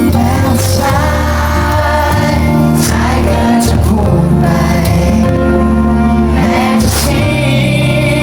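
Live pop ballad: a wordless improvised vocal line, the voice gliding and bending in place of a solo, over acoustic guitar, a little string backing and sustained bass notes.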